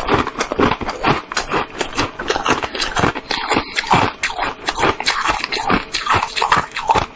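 Ice being bitten and chewed: rapid, irregular crunching and cracking, close to the microphone.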